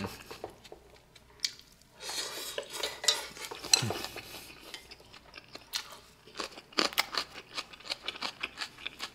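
Spoon and chopsticks clinking and scraping against a stainless steel pan of food, as scattered light clicks with a busier stretch of scraping in the middle.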